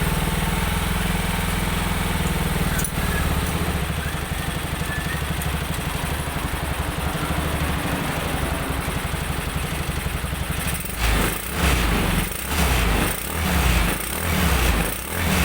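Jialing 200cc engine in a three-wheeled motorcycle running at a steady idle, then blipped up and down several times in quick succession near the end.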